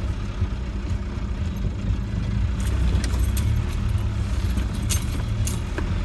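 Land Rover 90 engine running steadily, heard from inside the cabin, with scattered sharp clicks and rattles as the vehicle jolts along a rutted muddy track.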